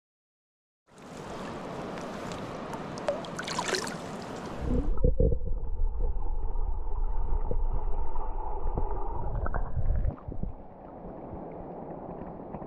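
Rushing river water, then for about five seconds a louder, muffled low rumble of water with the high end cut off, easing to a quieter muffled wash near the end.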